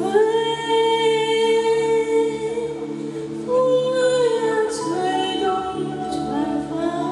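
A singer's voice sustaining long, slow notes over a steady held chord in the accompaniment.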